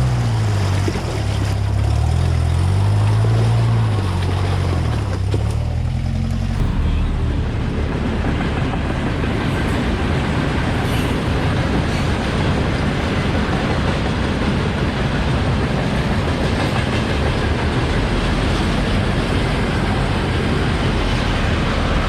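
Off-road vehicle engine revving up and down under load, then from about seven seconds in a steady, rough running with a dense noise over it.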